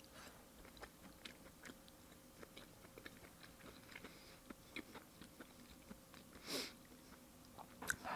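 Faint chewing of raw fish sashimi, with small scattered wet mouth clicks.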